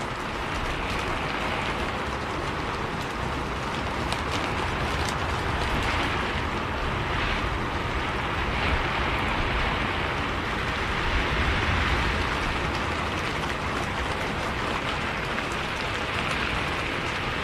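Steady rain on a bus's windows and roof, with scattered sharp drop ticks and a low rumble of the bus running underneath.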